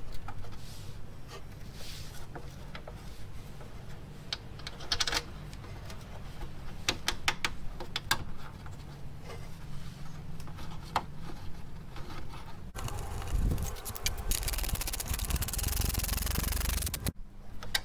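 Hand-handling sounds of a Honda Goldwing GL1500's front fender bracket and chrome trim being fitted: scattered clicks and short scrapes, with a denser stretch of rubbing and scraping near the end.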